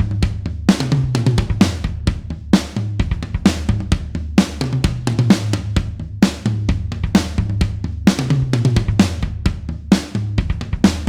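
Rock drum kit playing a steady beat: kick drum, snare, hi-hat and cymbals, over low sustained bass notes.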